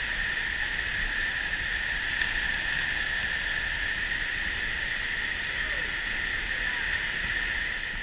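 Steady rush of the Pulhapanzak waterfall, a constant loud hiss of falling and churning water close by.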